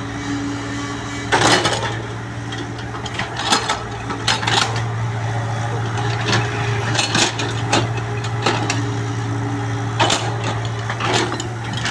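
Excavator's diesel engine running steadily under load while the bucket cuts roadside soil, with repeated sharp knocks and clanks of the bucket and arm at irregular intervals.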